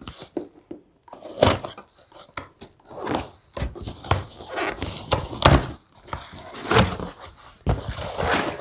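Cardboard packaging being handled and opened: irregular rustling and scraping with several sharp knocks and thumps.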